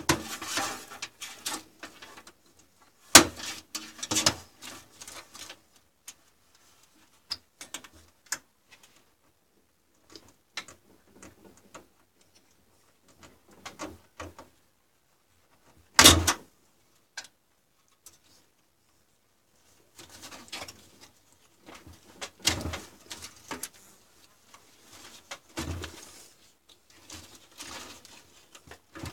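Clicks, knocks and rustling of hands handling cables and connectors inside an open metal PC tower case, with two sharper knocks about three seconds in and about sixteen seconds in, and busier handling near the end.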